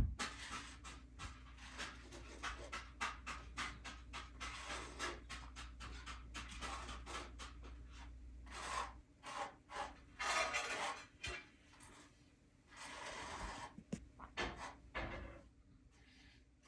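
A sharp thump, then irregular scraping and rasping strokes, as of a hand tool working a hard surface. A low steady hum runs underneath until about halfway, and the strokes come louder and longer near the end.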